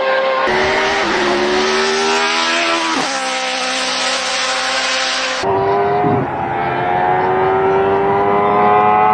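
Judd racing engine at high revs, its pitch holding and climbing, with sharp dips about one and three seconds in like gear changes. About halfway through the sound changes abruptly, then the engine note rises steadily as it accelerates.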